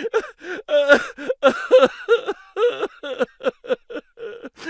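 A girl's high-pitched voice in quick, short syllables, chattering without clear words.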